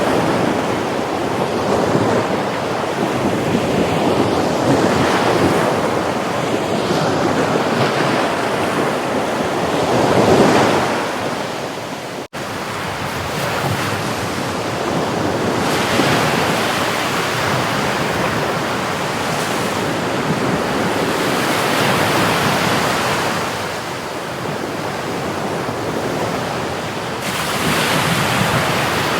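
Sea waves breaking and washing ashore, the surf swelling and easing every few seconds. A brief dropout about twelve seconds in.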